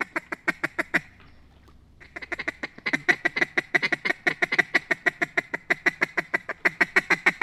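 A hunter's mallard duck call blown in a fast, even run of quacks, about six a second, breaking off for about a second near the start and then running on. This is calling meant to get the attention of circling ducks.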